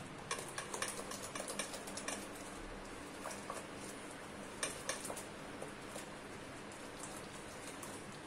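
Coarse-ground moong dal vada batter being beaten by hand in a bowl: a quick patter of small clicks and slaps, thinning out after about two seconds, with a few more bursts near the middle. The batter is still being beaten because a drop of it has not yet floated in water.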